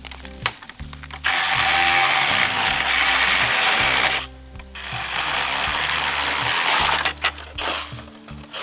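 Electric chainsaw cutting through bamboo in two runs of about three seconds each, with a short pause between, after a few sharp clicks, over background music.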